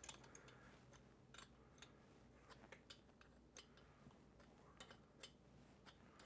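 Near silence with faint, scattered clicks of wrenches on an adjustable pushrod's adjuster nut as it is cranked out four full turns from zero lash.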